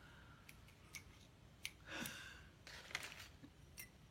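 Faint handling noise of yarn skeins being picked up and compared: a few light clicks and two soft rustles.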